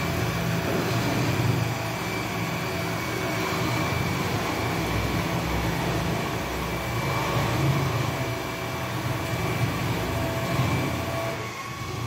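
AEG RX9 robot vacuum cleaner running: a steady whir of its suction fan and brush motors with a thin high whine over a low rumble, easing off a little near the end as it moves away.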